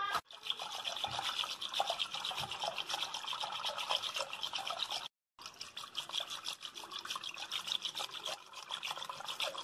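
Wire whisk churning curd and water in a clay pot: rapid, even wet swishing strokes, several a second, as the butter separates from the buttermilk. The sound breaks off briefly about five seconds in.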